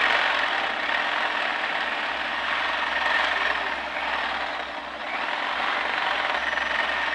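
Electric drill running under load as its bit bores into a wooden door, a steady whine that eases briefly about five seconds in.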